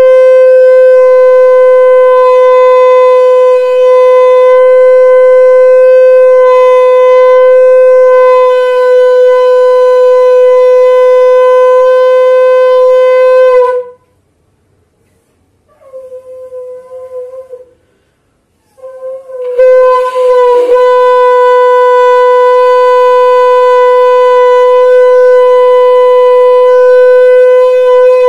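Conch shell (shankh) blown in long, steady blasts at a single pitch, sounded as an auspicious call (mangal dhwani). One long blast stops about halfway through, a short, quieter toot follows, and a second long blast starts a few seconds later.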